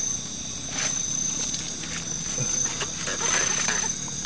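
Steady night chorus of crickets chirring, with short rustles and scrapes of hands handling a fishing line and leaves.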